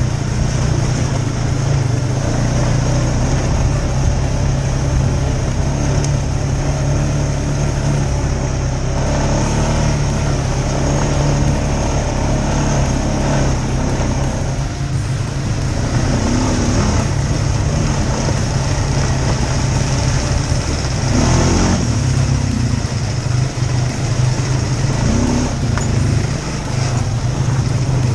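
ATV engine running under way on a dirt trail, heard from the rider's seat: a steady drone whose pitch rises and dips briefly a few times in the second half as the throttle changes.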